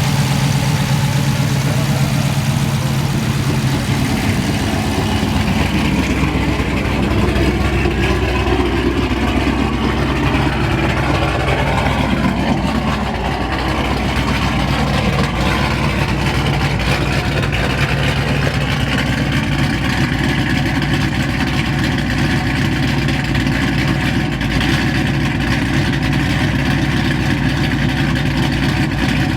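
Dodge Scat Pack's 392 HEMI V8 running at idle with a choppy lope from a freshly installed stage 6 camshaft, on one of its first runs after the cam swap and new tune.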